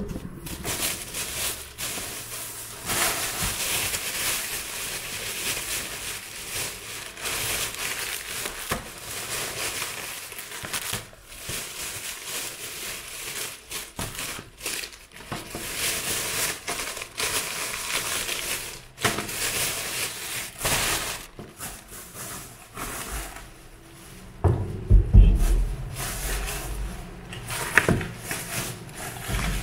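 Thin plastic shopping bags and food packaging rustling and crinkling as groceries are lifted out and set down on a counter. A dull thump and a sharp knock come a few seconds before the end.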